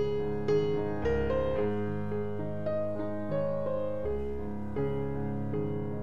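Background piano music: notes and chords struck about every half second to second and left to ring.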